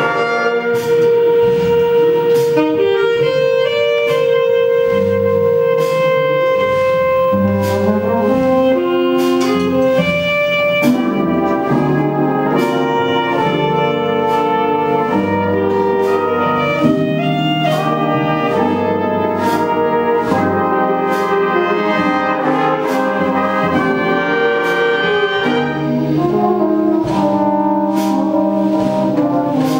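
A school jazz band playing a slow ballad: alto saxophone and a brass section over piano, upright bass and drums, with long held notes and chords and cymbal strikes.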